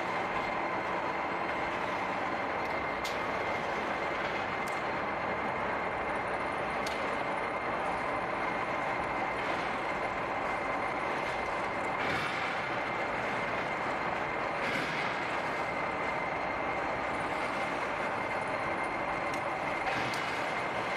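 Electric-motor-driven railway turntable rotating while carrying a steam locomotive: a steady mechanical running noise with a constant high whine and occasional sharp clicks.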